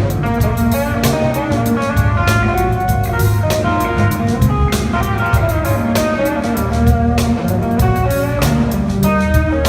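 A live band playing blues-jazz: electric guitar takes the lead over a drum kit and a bass, with cymbal and drum hits falling throughout.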